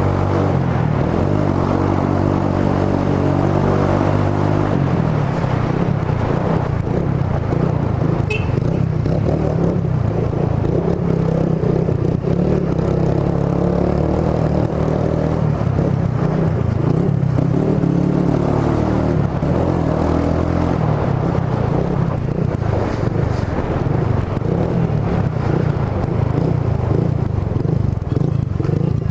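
Suzuki GSR 150i's single-cylinder engine running through an aftermarket Roncar SS oval exhaust while being ridden, its low exhaust note shifting in pitch a few times as the throttle and gears change.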